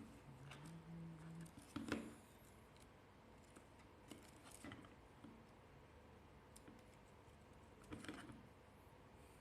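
Faint, scattered clicks and light taps of small parts and tools being handled, with louder clicks about two seconds in and again near the end.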